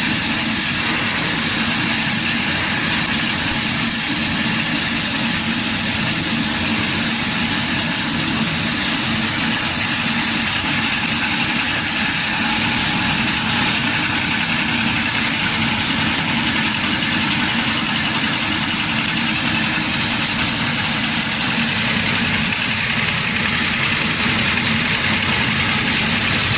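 Chili flakes grinder machine running with a steady, unchanging mechanical noise.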